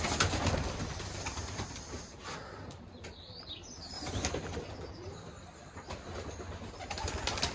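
Wings of a flock of young racing pigeons flapping and clattering as they take off from the loft and fly off, busiest in the first second and then fading.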